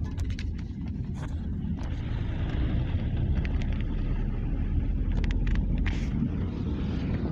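Moving car heard from inside: a steady low rumble of engine and tyres, with scattered short knocks and rattles.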